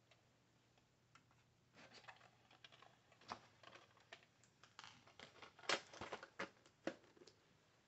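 Faint, irregular clicks and clatter from the DVD tray mechanism of a JVC HR-XVS44U S-VHS/DVD combo player as the tray slides open carrying a disc, with the sharpest clicks near the end as it reaches full extension.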